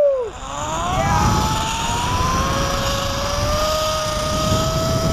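Zip-line trolley pulleys running along a steel cable: a whine that rises in pitch over the first couple of seconds as the rider gathers speed, then holds steady. Wind rushes on the microphone throughout.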